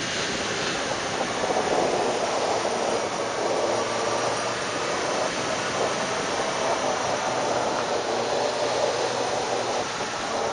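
Steady rush of wind and road noise while riding a motorcycle, as picked up through the microphone of a JVC GC-XA1 Adixxion action camera. A faint low hum joins about a third of the way in.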